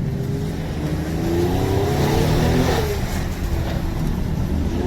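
Car engine accelerating, its pitch rising for a couple of seconds, then dropping briefly about halfway through before settling into a steadier drone.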